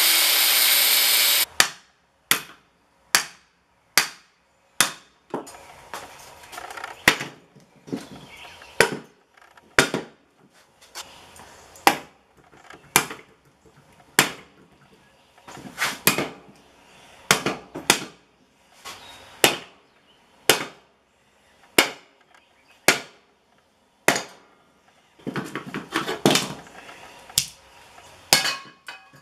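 A power tool cutting metal stops about a second and a half in. Then a hammer strikes a small electric motor's steel housing about once a second, driving the copper-wound stator out of its shell.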